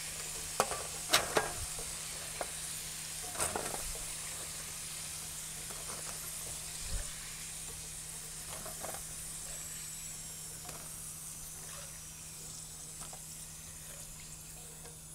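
Potato chips frying in hot oil in a wok: a steady sizzle. A few sharp clicks and knocks come mostly in the first four seconds, as a slotted spatula lifts fries against the pan and a wire rack.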